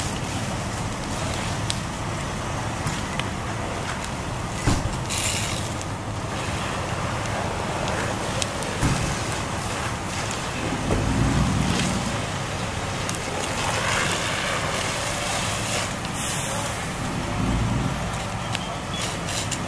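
Steady rushing noise of a working structure fire: fire engines running with hose streams spraying water onto the burning house. A sharp knock comes about five seconds in.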